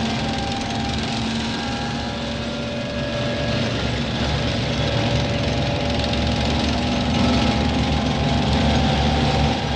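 Tanks driving past in a column: a steady, loud engine rumble mixed with the noise of the tracks, getting a little louder about seven seconds in.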